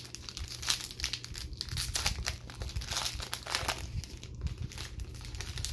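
Foil booster pack wrapper crinkling as it is handled and opened, a rapid string of irregular crackles.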